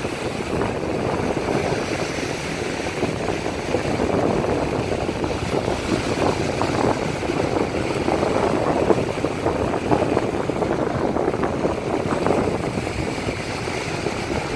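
Small surf waves breaking and washing up a sandy beach: a steady rushing noise that swells and eases.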